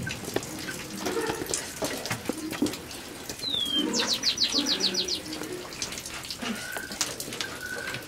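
Small birds calling: a short falling chirp about three and a half seconds in, then a quick high trill of about eight notes a second, and brief whistled notes repeating near the end, over a background of clicks and handling noise.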